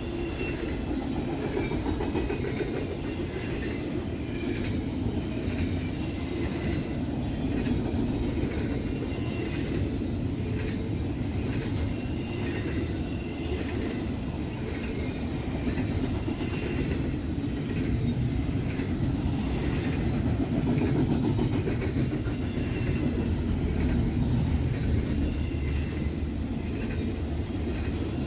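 Freight train cars rolling past: a steady rumble with the rhythmic clickety-clack of wheels over rail joints and a faint wheel squeal.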